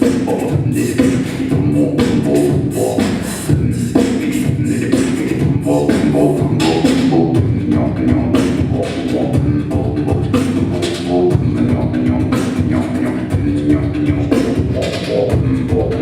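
Improvised group music: layered, sustained pitched tones with frequent sharp percussive hits keeping a rhythm, in the manner of vocal sounds and beatboxing.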